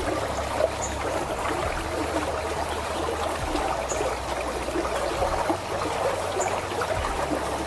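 Steady rush of water flowing through a concrete irrigation channel.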